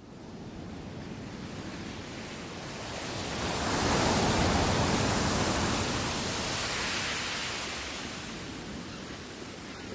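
Steady rushing noise that swells to its loudest about four seconds in, then eases off.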